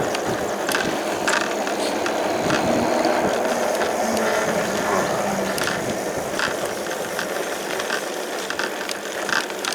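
Heybike Ranger S fat-tire e-bike riding on throttle alone, its freewheel ratcheting steadily over a running hum, with scattered clicks.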